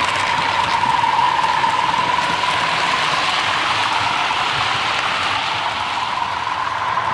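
Model train running on the layout: a steady electric-motor whine over the hiss and rattle of wheels on the model track as a train of tank wagons passes.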